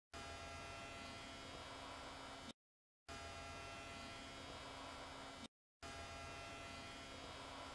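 A short stretch of amplified IR-camera recording replayed three times, each pass broken off by a brief dead silence: a steady electrical hum and hiss with several steady tones, under which lies a faint sound the investigators caption as a possible breath.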